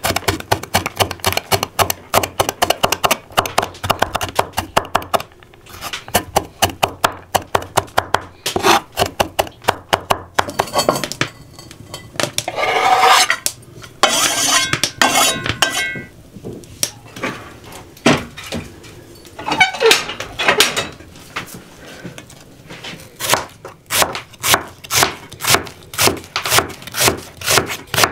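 Kitchen knife chopping quickly on a wooden cutting board, garlic and then a peeled onion, in fast runs of sharp strokes. In the middle, a few seconds of metal clatter and scraping from a cast iron frying pan.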